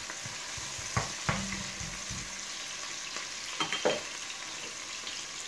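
Chopped onion sizzling in hot sunflower oil in a kazan as it starts to fry, stirred with a spatula. There are a couple of knocks of the spatula on the pot about a second in, and a short clatter near four seconds as the spatula is set down.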